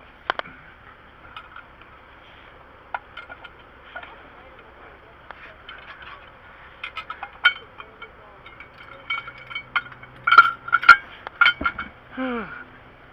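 Metal tire-changing tools clinking and clattering as they are handled, a scatter of sharp clinks with brief ringing that gets busier and louder in the last few seconds.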